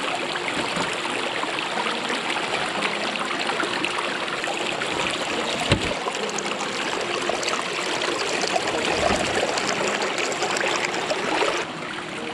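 Shallow rocky creek running over stones in small cascades: a steady rush and trickle of water, with one brief knock about six seconds in.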